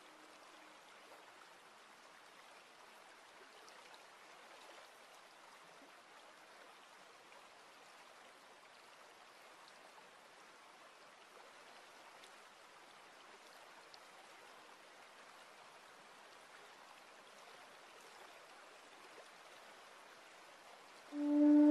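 Faint, steady trickle of water running over the stones of a rocky garden stream. Flute music comes in loudly just before the end.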